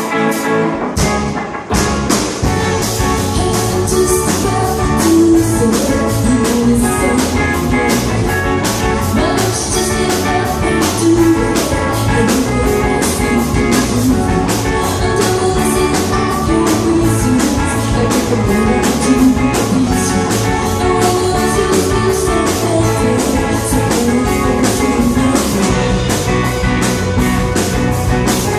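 Rock band music with electric guitar and a steady drum-kit beat.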